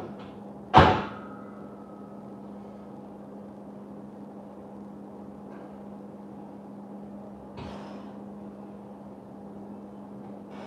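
A sharp metal clank about a second in as the steel pull-up bar and rack take a man's weight at the start of a set of pull-ups, ringing briefly after the hit. After it, a steady low hum, with a softer rustling thud near the end.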